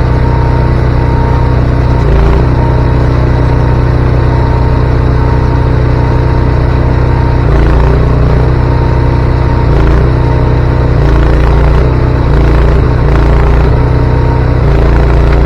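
Engine running steadily, a low even drone with a few slight changes in load.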